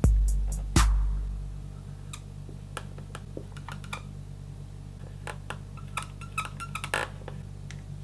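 Two heavy thumps in the first second, then the squeak and tap of a felt-tip marker writing letters on a clear plastic container.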